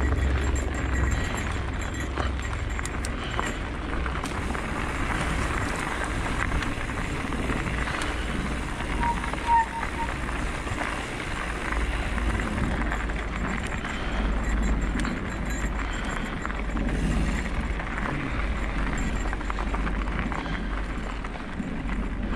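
Wind buffeting a handlebar-mounted GoPro on a mountain bike, with tyre noise and small rattles from riding a dirt singletrack. A short tone sounds once, about halfway through.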